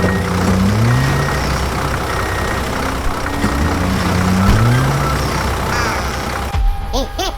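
Tractor engine running loudly, its pitch rising again and again as if revving. A little before the end it cuts off suddenly into cartoon-style boing sound effects.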